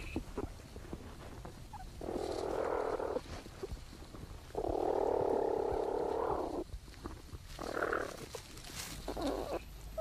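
Platypus mother and young moving and suckling inside their nesting burrow, close to a burrow microphone: several rough, noisy sounds, the longest about two seconds just past the middle, with small clicks and scratches between.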